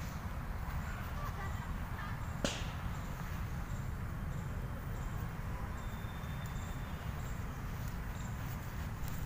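Steady low rumble on the microphone of a handheld camera carried outdoors, with one sharp click about two and a half seconds in and a faint thin high whistle briefly about six seconds in.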